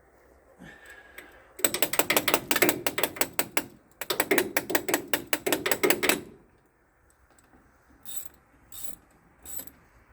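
Hand socket ratchet tightening the negative battery cable clamp onto a tractor battery terminal: two runs of rapid ratchet clicking, each about two seconds long, then three separate clicks near the end.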